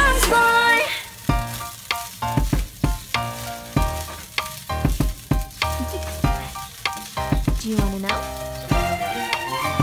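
Fried rice sizzling in a nonstick frying pan as a spatula stirs and tosses it, with repeated sharp scrapes and taps of the spatula against the pan, two or three a second.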